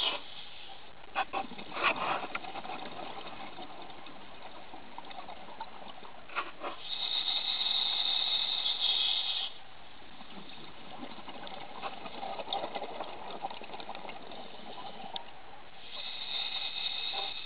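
Scuba diver breathing through a regulator underwater: a hissing inhalation about seven seconds in and again near the end, with bubbling exhalations and a few clicks between.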